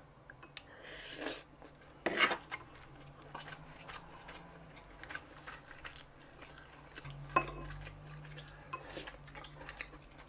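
Metal cutlery clinking and scraping against the hot pot and dishes while eating, with scattered small knocks (the loudest about two seconds in) and soft chewing.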